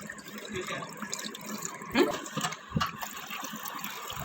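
Water running and splashing, with a few louder splashes about two seconds in.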